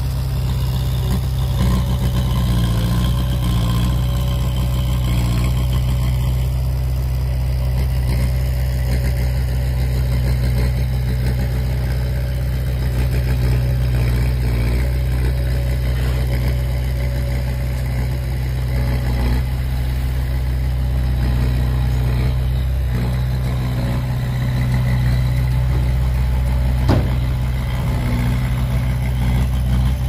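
Heavy diesel engine of a construction machine running steadily at a constant low pitch, with a single sharp knock near the end.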